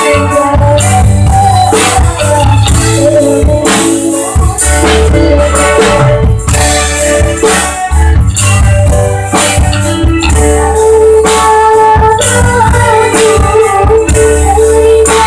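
A child singing over loud music, with a steady drum beat and a heavy bass line under the held sung notes.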